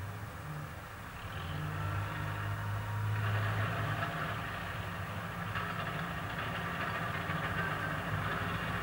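Diesel engine of a wheeled front-loader tractor idling steadily, joined about three seconds in by a louder hiss as a car drives past.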